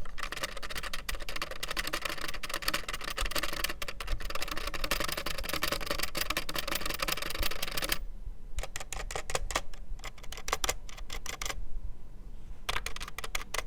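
Cheap mechanical keyboard being typed on in a fast, continuous clatter for about eight seconds, then keys struck in short separate groups with pauses between. The keys rattle on loose, unlubricated metal stabiliser bars.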